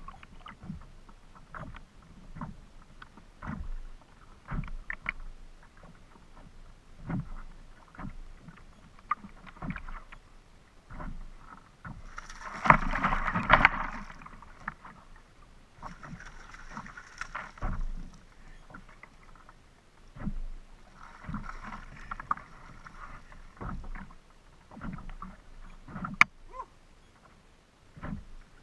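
Choppy lake water slapping and knocking irregularly against a plastic fishing kayak's hull. About halfway through there is a louder stretch of splashing as the landing net comes up out of the water, and a single sharp click near the end.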